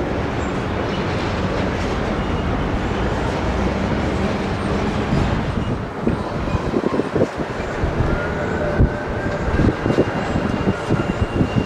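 A train passing close by on jointed track. First comes a steady rumble, then, from about six seconds in, a run of irregular clacks as the wheels cross the rail joints. A faint high whine comes in near the end.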